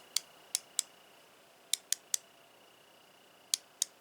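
Hand ratchet wrench clicking, the pawl ticking over a few teeth at a time in small groups of two or three sharp clicks.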